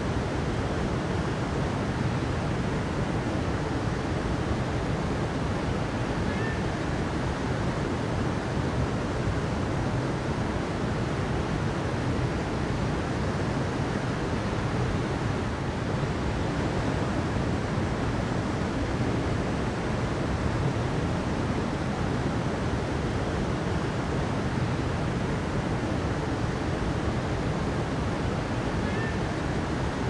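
Flowing water rushing steadily, an even, unbroken noise with a deep, full body.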